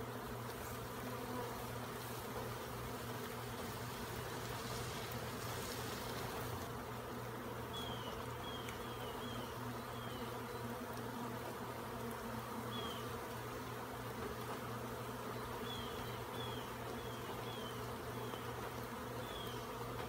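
A large mass of honey bees from a feral colony, opened up for a comb cutout, humming steadily. A few short, high, falling chirps sound over the hum from about eight seconds in.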